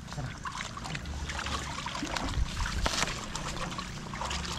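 Shallow water sloshing and splashing in irregular bursts, as of feet wading through a flooded rice paddy.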